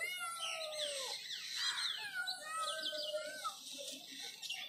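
Kittens mewing repeatedly, many short high-pitched calls that rise and then fall, several overlapping at once.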